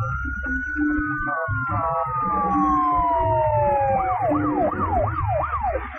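Electronic emergency-vehicle siren on a paramedic rescue truck. A long wail, doubled by a second overlapping siren, rises and then slowly falls; about four seconds in it switches to a faster yelp sweeping up and down about twice a second. Rhythmic background music runs underneath.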